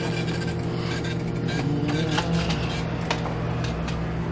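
Car engine idling steadily, with a few faint short clicks.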